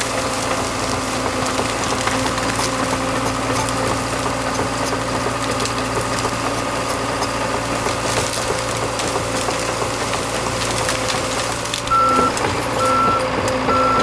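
John Deere 650K crawler dozer's diesel engine running steadily as the blade pushes into a pile of brush and fallen trees, with branches cracking now and then. Near the end its backup alarm beeps three times, about a second apart, as it starts to reverse.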